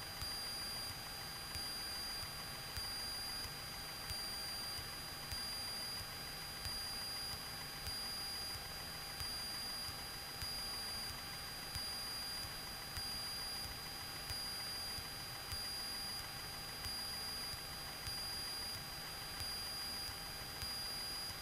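Faint hiss and a steady high electrical whine on a light aircraft's intercom audio feed, with a low engine drone underneath and a small regular pulse about once a second.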